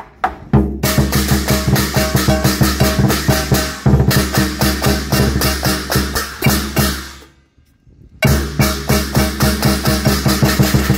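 Lion-dance drum beaten with sticks together with clashing hand cymbals, in a fast, steady beat. It breaks off about seven seconds in and starts again about a second later.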